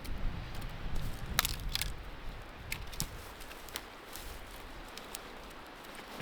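Dry twigs and branches of a fallen tree cracking and snapping, a scatter of separate sharp snaps, while they are broken away to clear a way underneath. Wind rumbles on the microphone during the first couple of seconds, then dies down.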